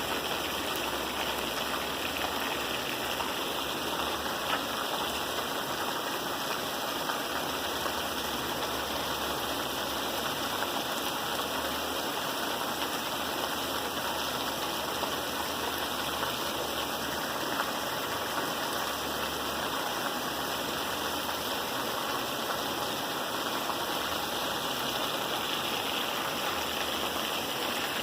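Steady rain falling: an even, unbroken hiss of water that does not change.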